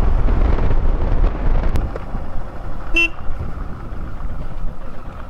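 Motorcycle riding noise, a dense low rumble of engine and wind, with one short horn toot about three seconds in; the rumble eases toward the end.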